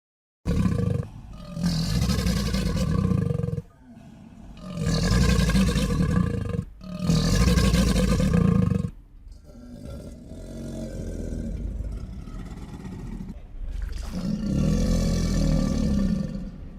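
Crocodile roaring: three long, deep, loud roars one after another, a quieter stretch, then another loud roar near the end.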